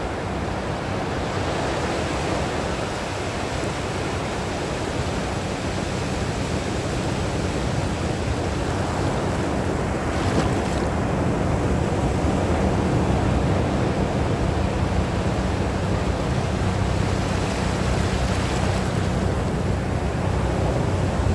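Sea surf washing continuously, with waves breaking a little louder about halfway through and again near the end.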